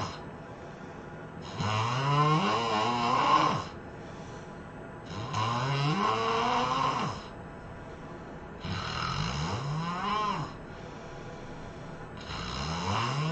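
A person snoring loudly, four long snores about three and a half seconds apart, each rising and then falling in pitch, with quiet breaths between.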